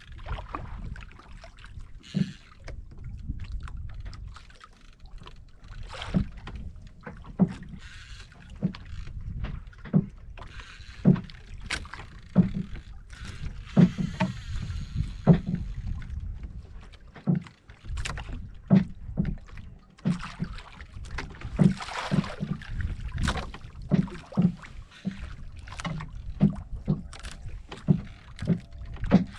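Water slapping and knocking against the hull of a small wooden outrigger boat, irregular thumps about once or twice a second over a steady low rumble of wind and sea.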